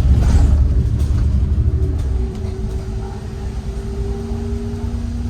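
City bus in motion, heard from inside: a heavy low engine and road rumble that eases off about two seconds in, with a steady low drivetrain whine running under it.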